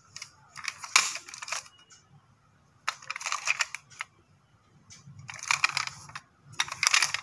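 Plastic Centy toy car, a Hyundai i10 model, being handled and turned over by hand. There are four short bursts of clicking and rattling, each about a second long.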